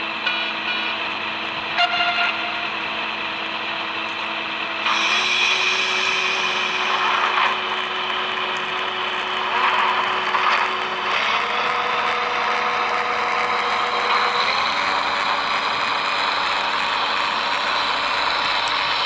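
Sound decoder in a Roco HO-scale X2800 diesel railcar playing its recorded diesel engine sound as the railcar pulls away. The engine gets louder about five seconds in, and its note then shifts in pitch in steps a few times as it runs on.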